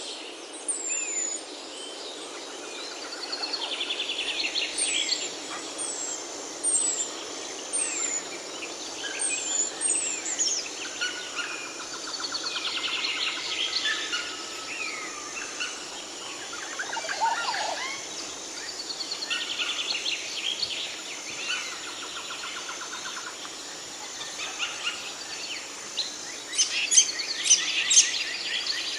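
Several birds singing and calling at once: short high whistles that slide downward, repeated in the first ten seconds, with trills and chatter throughout and a run of loud, sharp high calls near the end. A steady hiss lies underneath.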